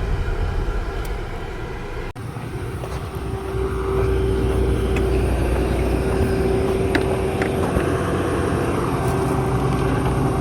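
Motor vehicle running steadily with engine and road rumble. An abrupt cut comes about two seconds in, after which a steady hum with a held tone gets louder.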